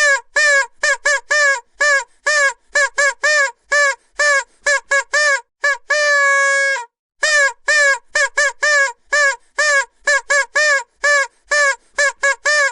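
Vuvuzela blown in rapid short toots, several a second, each bending up and down in pitch. One longer held note comes about halfway through.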